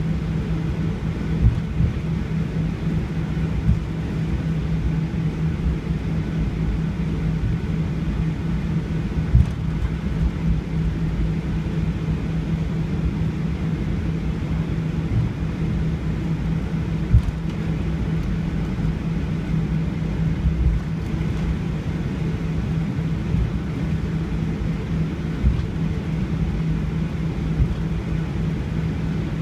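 Jet airliner cabin noise heard from a window seat: a steady low rumble of engines and airflow with a constant hum, broken by a few brief low knocks.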